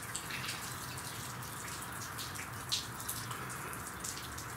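Steady rushing background noise with a faint low hum and a few soft clicks, one clearer click near the middle.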